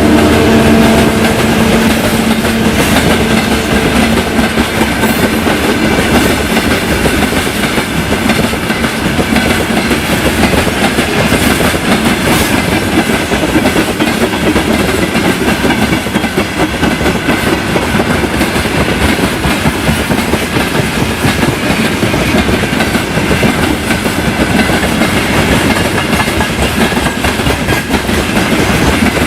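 Loaded freight train wagons rolling past close by, their wheels clattering steadily over the rail joints. A diesel locomotive's engine note dies away in the first few seconds.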